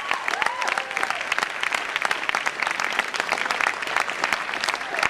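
Audience applauding steadily, dense clapping, with a brief cheer rising and falling in pitch about half a second in.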